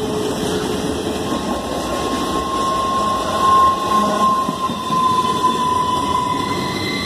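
Norfolk Southern double-stack intermodal freight train rolling past, a steady rumble of wheels on rail and cars going by, with a thin steady whine running through most of it.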